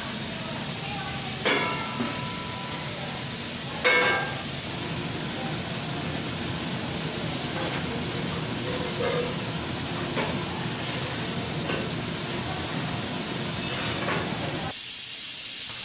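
Steady hiss of a commercial kitchen, with two short ringing metallic clinks, about a second and a half in and again near four seconds. Near the end the hiss changes abruptly to a thinner, brighter one.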